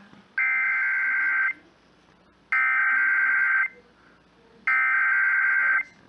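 Emergency Alert System SAME header broadcast over FM radio: three identical bursts of buzzy digital data tone, each about a second long with about a second's pause between. The bursts are the coded header that opens the severe thunderstorm warning.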